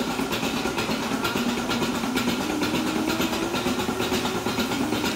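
Goat parlour milking machinery running: a steady, engine-like hum of the vacuum system with a regular ticking a few times a second.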